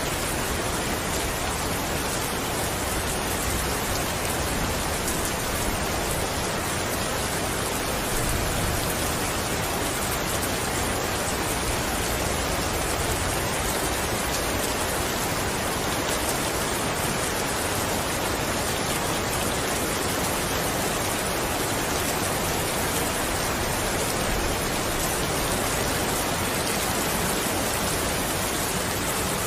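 Steady heavy rain falling, an even hiss of drops without let-up.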